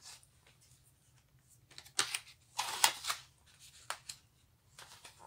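Paper pages of a picture book being turned: short rustles and flaps of paper, loudest about two to three seconds in.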